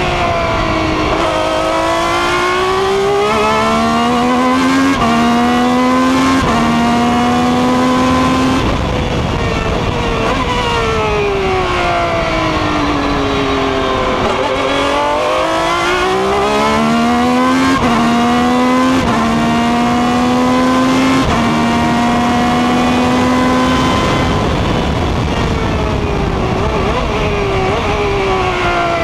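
Ferrari 333 SP's 4.0-litre V12 racing engine heard from the cockpit at speed. Its pitch falls as the car slows and comes down through the gears, then climbs in steps through several quick upshifts. The pattern repeats twice, with another slowdown near the end.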